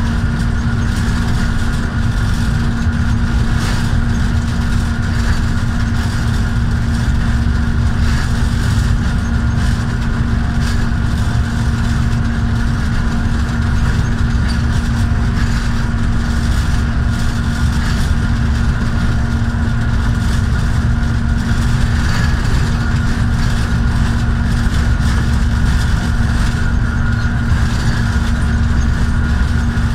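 GEU40 diesel-electric locomotive running steadily at speed, heard from its cab: a constant engine drone with a steady hum over the low rumble of the train on the rails.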